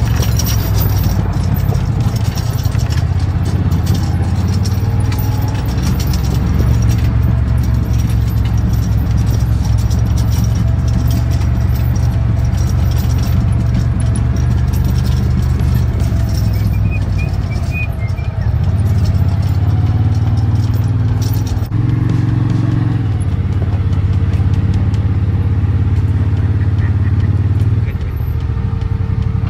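ATV engine running steadily under way, its note shifting a little with the throttle and easing down about two seconds before the end as the machine slows, with light rattling clicks over the engine.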